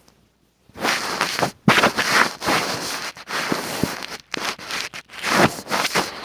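Handling noise from a phone being moved about: irregular rustling and scraping with scattered knocks, starting about half a second in after a brief silence.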